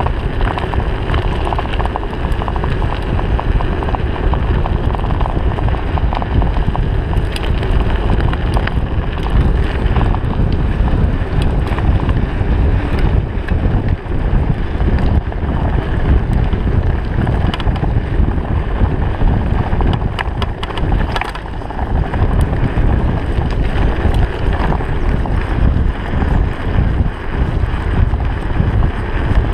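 Wind buffeting the camera microphone as a Trek 4500 hardtail mountain bike speeds downhill on a gravel road, over a steady low rumble of the tyres on gravel, with many small rattles and clicks from stones and the shaking bike.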